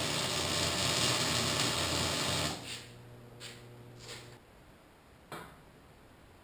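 MIG welding arc crackling and sputtering steadily on a steel pipe joint for about two and a half seconds, then stopping. A few short clicks follow, and a low steady hum cuts off about four seconds in.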